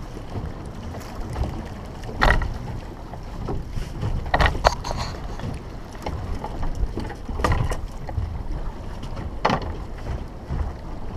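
Wind rumbling on the microphone and water moving around a small open fishing boat, with a handful of short, sharp sounds; the loudest comes about two seconds in.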